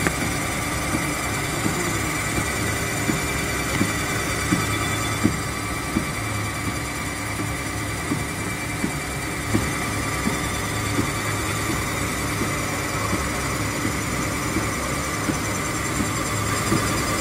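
Paper honeycomb production machinery running steadily, a low hum and a high whine with a regular knock about every 0.7 seconds.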